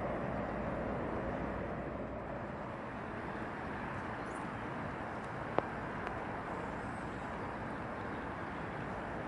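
Steady outdoor background rumble of a city harbour, a mix of distant traffic and machinery, with one sharp click a little past the middle.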